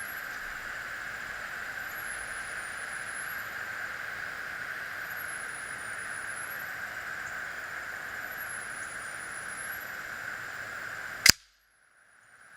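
One sharp shot from an Air Venturi AV-46M single-stroke pneumatic match air pistol, about eleven seconds in, over a steady hiss. Right after the shot the hiss drops out for about a second.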